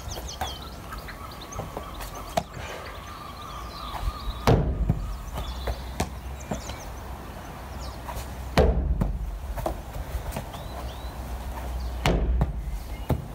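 A rugby ball thrown in one-handed passes thudding against a wooden shed wall three times, about four seconds apart. Birds chirp faintly.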